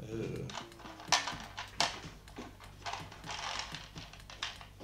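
Jelly beans being dispensed from a red plastic jelly bean dispenser and clattering into its tray, heard as a string of irregular sharp clicks.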